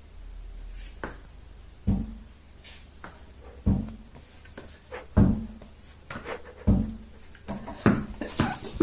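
A series of dull thumps, five of them about a second and a half apart, with lighter clicks and taps between them and more clicks near the end.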